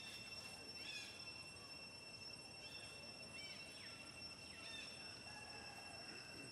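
Faint outdoor ambience: a steady, high insect drone at two pitches, with a few short, high, rising-and-falling chirps scattered through it.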